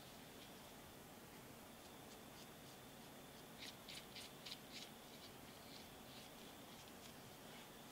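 A few faint, quick scratchy clicks, about six in a row around the middle, then a few fainter ones, as a threaded feed screw is turned into a pipe cutter's handle; otherwise near silence with a low hiss.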